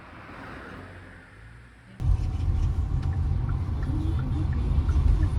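A low, steady rumble that starts abruptly about two seconds in, after a quieter stretch of faint hiss.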